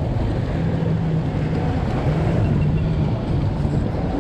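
Boat engine running steadily at low speed, its low hum wavering a little, with wind and water noise.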